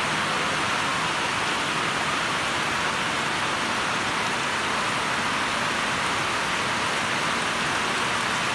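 Heavy rain pouring down onto the leaves of durian and banana trees and the grass: a steady, even hiss of rain that does not let up.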